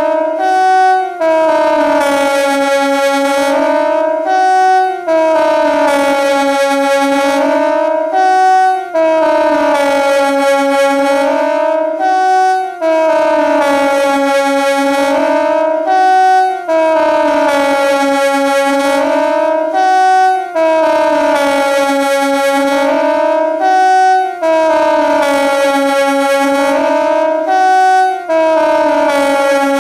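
KTG 10 siren sounding in a repeating cycle of about four seconds. Its tone dips in pitch and rises back, then gives a short higher note and a brief break before the next cycle, about eight times over.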